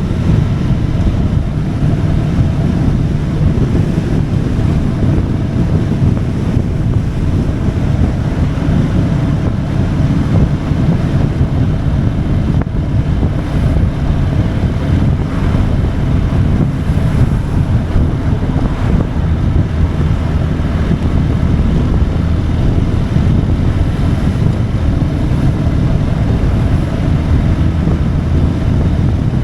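Steady rush of wind on the microphone of a motorcycle riding at speed, with the bike's engine droning steadily underneath.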